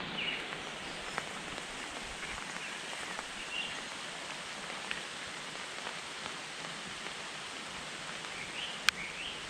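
Rain falling steadily in an even patter, with a few faint short chirps and one sharp click near the end.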